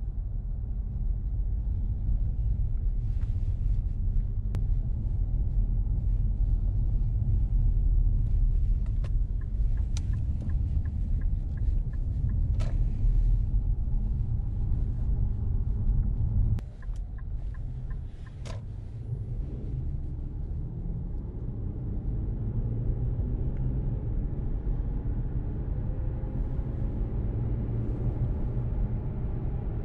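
Infiniti Q50S Hybrid's 3.5-litre V6 with an aftermarket remote-controlled exhaust, heard from inside the cabin while driving: a steady low engine rumble. A little past the middle it drops off suddenly for a moment, then the engine note climbs slowly in pitch as the car accelerates.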